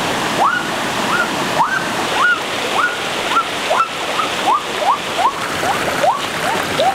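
A rocky stream rushing steadily over stones, with a run of short rising calls from an animal, about two a second, that begins about half a second in.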